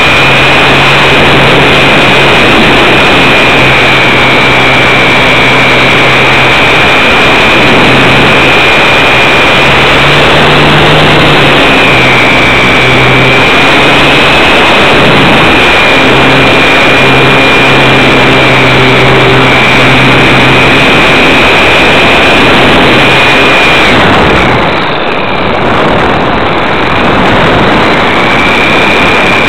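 Hobbyzone Super Cub RC plane's electric motor and propeller whining, heard from a camera riding on the plane, over heavy wind rush; the whine's pitch drifts up and down with the throttle. Near the end the whine stops and the noise drops for a few seconds as the plane glides, then the whine comes back.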